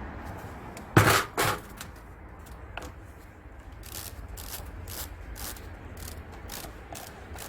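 Hand tools at work on a car alternator being taken apart: two loud sharp metal knocks about a second in, then a regular scraping or rasping stroke, about two and a half a second.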